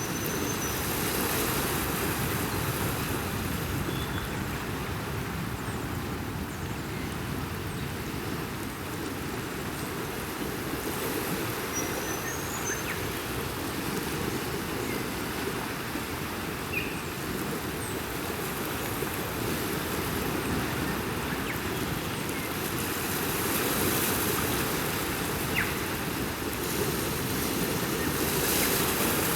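Steady wash of ocean surf, swelling louder now and then as waves come in, with a few faint short chirps over it.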